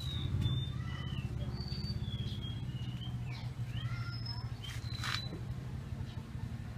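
Small birds chirping in many short, high calls over a steady low engine hum.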